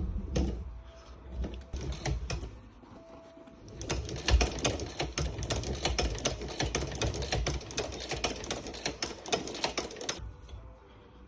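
Singer 29K13 boot patcher sewing machine stitching: a few scattered clicks at first, then a fast, even run of mechanical clicking from about four seconds in that stops abruptly about a second before the end.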